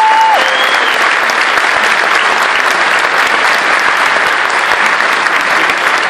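Audience applauding loudly after a choir song, a dense steady clapping. The children's choir's final held chord cuts off just as the applause takes over.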